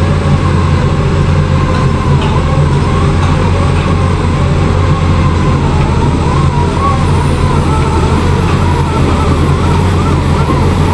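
Heavy diesel construction machinery running steadily: a loud, deep engine hum with a faint wavering higher whine over it.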